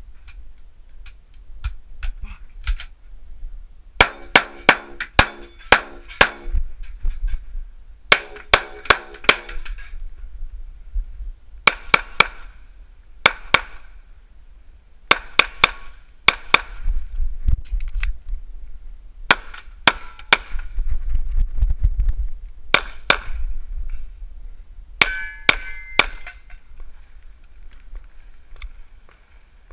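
Pistol fired in quick strings of shots with short pauses between, during a practical shooting stage. In the first two strings the shots are followed by the ringing of hit steel plates.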